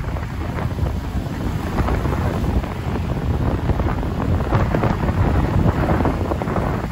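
Wind buffeting the microphone of a rider on a moving motorbike, a heavy low rush with road and traffic noise underneath, growing slightly louder.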